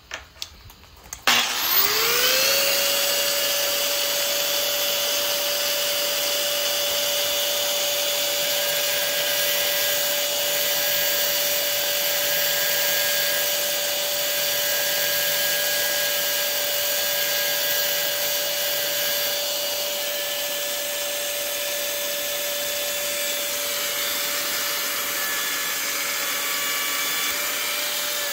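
Small high-speed power grinder spinning up about a second in after a few clicks, then running at one steady high pitch while grinding a groove into a screw-in arrow field point, and starting to wind down at the end.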